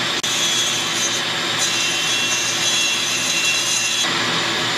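Rotary-tool burr grinding inside a chainsaw cylinder's transfer port, a steady high whine with rasping, which stops about four seconds in. Under it runs the steady drone of a shop vacuum.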